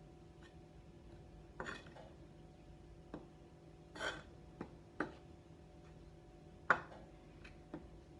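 A spoon stirring seasoned flour in a bowl, making a few scattered light clinks and scrapes against the bowl, the sharpest clink a little past two-thirds through.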